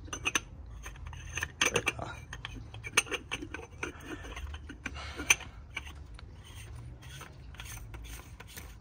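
Scattered metal clicks and scraping as an oil catch can is handled and fitted back onto its mount in an engine bay.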